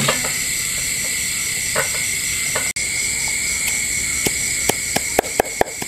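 A steady chorus of crickets and other night insects. About four seconds in, a cleaver starts chopping cooked catfish meat on a wooden block, the blows coming faster until there are several a second.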